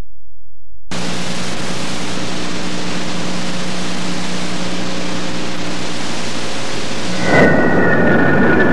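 Loud, even hiss of a VHS tape playing its unrecorded leader, with a steady low hum under it; the hiss starts about a second in. About a second and a half before the end the recorded soundtrack takes over: a jet airliner's engines, with a high whine of two steady tones.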